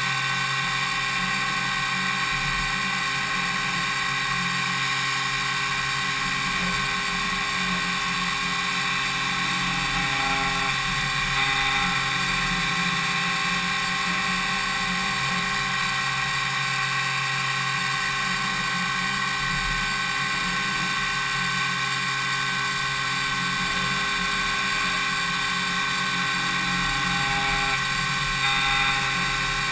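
Spindle of a DMU 70V five-axis machining centre milling an impeller blade: a steady high whine made of many held tones. It swells slightly about twelve seconds in and again near the end.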